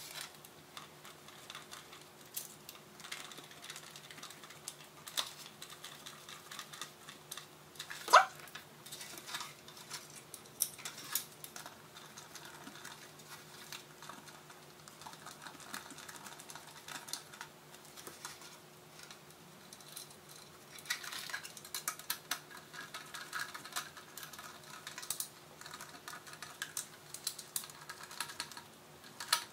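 Light irregular clicking and rattling of hand work with a screwdriver, a plastic speaker pod and its wires, with one louder short sound about eight seconds in and busier clicking in the last third. A faint steady hum underneath.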